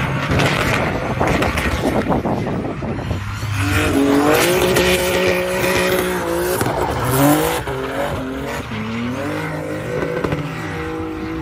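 BMW drift car with a sequential dogbox gearbox, engine revving hard up and down while its tyres squeal as it slides sideways through a corner. A rough rushing noise at first, then the engine note climbs, holds, drops and climbs again.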